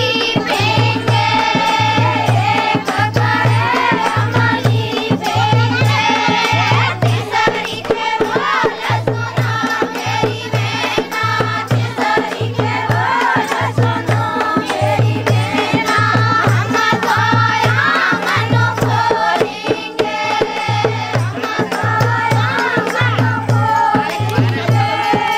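Dehati folk dance song: singing over a steady drum beat, with a deep bass pulse a little more than once a second and lighter percussion.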